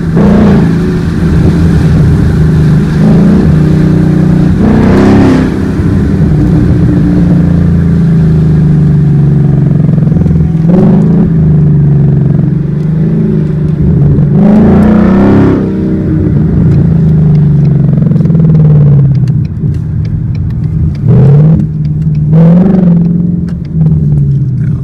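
2020 Mustang GT's 5.0 Coyote V8 running through a Pypes exhaust, heard from inside the cabin while driving. A steady exhaust drone whose pitch swells and drops several times as the revs change.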